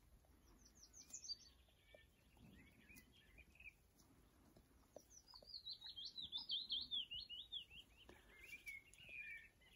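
Willow warbler singing: two phrases of quick, sweet notes that step down in pitch, the first starting about half a second in and the second, louder one about five seconds in.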